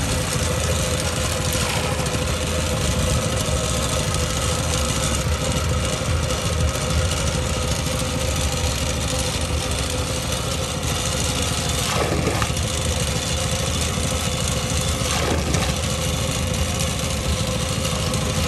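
Small long-tail boat engine running steadily, an even mechanical drone that holds without change.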